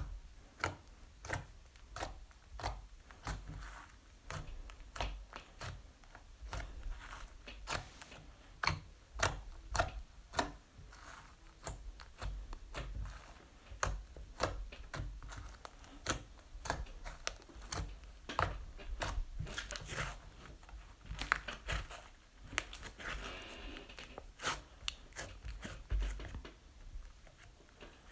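Floam slime (slime packed with tiny foam beads) being squeezed and kneaded by hand, giving irregular crunchy crackles and pops, a few each second.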